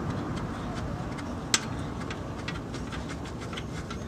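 A few light metallic clicks from a hub bolt and hand tools being handled, one sharper than the rest about a second and a half in, over a steady background rumble.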